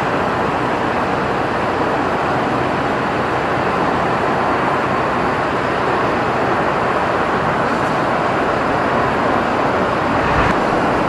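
Steady outdoor background noise, like road traffic, at an even level with no distinct events.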